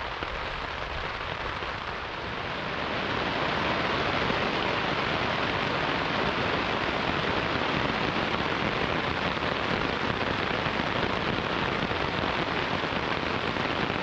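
Heavy rain falling on the fabric of a Seek Outside Cimarron Light tent, heard from inside as a dense, steady hiss. It grows louder about three seconds in.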